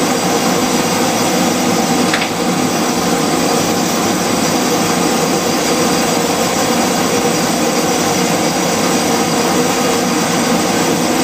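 Homemade forced-air propane forge burner running, a weed-torch nozzle feeding a 1.5-inch pipe with its air blown in by a handheld hair dryer: a loud, steady rush of the dryer's fan and the burning gas.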